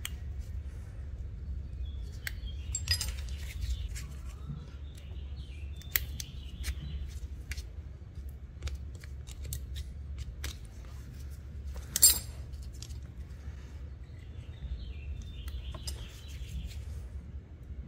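Small metal clicks and scrapes as a screwdriver and fingers work the spring-loaded brushes of a lawn tractor starter motor's brush holder, pushing them back into their holders. One sharp click about twelve seconds in is the loudest. A steady low hum runs underneath.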